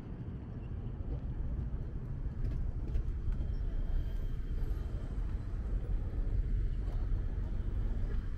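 Street ambience: a steady low rumble of road traffic, with a few faint clicks.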